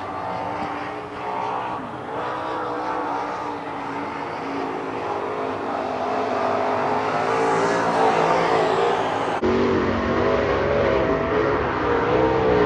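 Dirt-track race car engines running and revving on the track, the pitch rising and falling as the cars go round; the sound changes abruptly about three-quarters of the way through.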